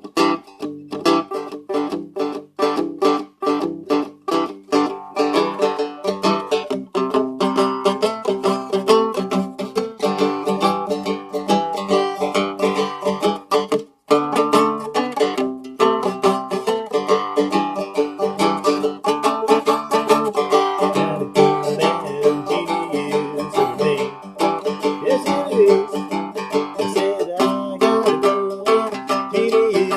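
Seagull Merlin, a four-string fretted dulcimer tuned G-D-G-G, fingerpicked in a simple blues in G. Single plucked notes come at first, then busier picking, with a brief break about halfway through.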